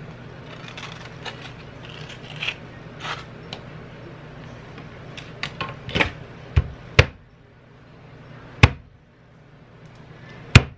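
Avocado being prepared by hand: soft scraping as flesh is scooped out with a plastic avocado tool, then a knife cutting an avocado on a plastic cutting board, with a few sharp knocks in the second half and one near the end.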